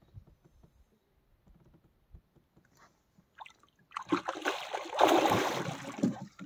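A hooked pike of about 7 kg thrashing at the water's surface beside the boat as a hand grabs for it: faint knocks, then about four seconds in a burst of loud splashing that lasts about two seconds.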